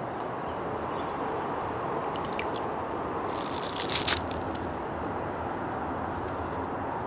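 Thin clear plastic wrapper crinkling as it is pulled off a disposable plastic spoon, one burst of about a second and a half in the middle, over a steady background hiss.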